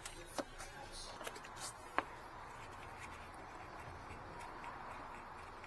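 A few sharp metallic clicks and clinks from hand tools at work on the bolts, bunched in the first two seconds with the loudest about two seconds in, then a low steady background.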